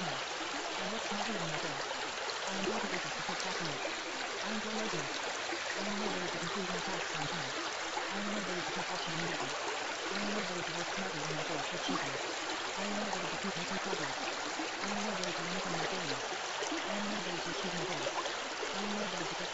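Steady rush of running water, like a stream, with a faint, low voice murmuring underneath in short repeating phrases: the buried affirmations of a subliminal track.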